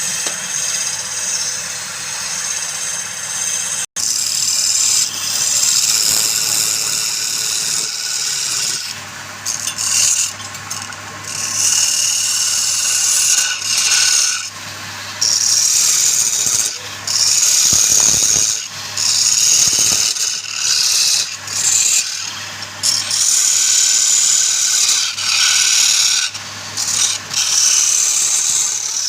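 A wood lathe runs with a steady low hum while a tool works the spinning wood in repeated hissing passes, each one to two seconds long with short breaks between them.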